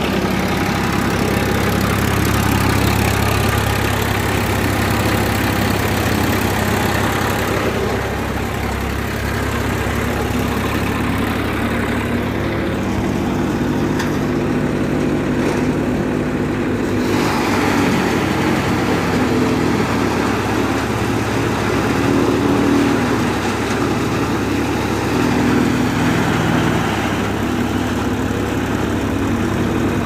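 Tractor engine running steadily, driving a hitched chaff cutter that chops green fodder stalks and blows the chopped fodder up its delivery pipe.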